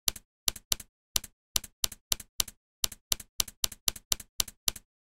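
Typewriter keystrokes, about sixteen sharp clicks at roughly four a second, each with a softer second tap. They are laid on as a typing sound effect for the title being typed out letter by letter.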